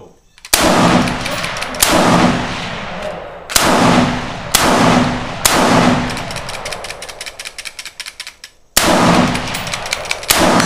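Semi-automatic AR-15-style rifle firing single shots, seven in all at an uneven pace, with a pause of about three seconds before the last two. Each crack rings on for a second or more under the shelter's roof.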